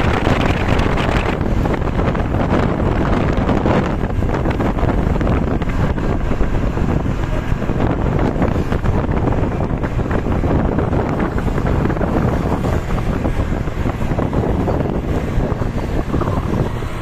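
Wind buffeting the microphone over steady vehicle and road noise.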